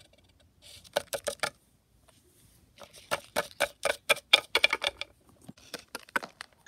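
Hard plastic Littlest Pet Shop toy figures tapped against the set's floor as a hand hops them along: a quick run of clicks about a second in, a longer, faster run from about three to five seconds in, and a few more near the end.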